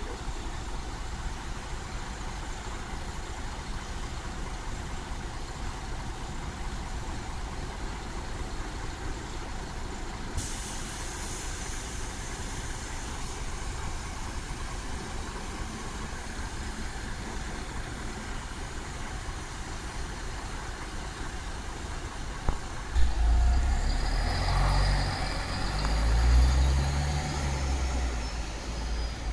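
MAN Lion's City GÜ articulated bus idling with a steady low hum. About 23 seconds in there is a short sharp burst, then the engine revs up and down as the bus pulls away, with a rising whine as it gathers speed.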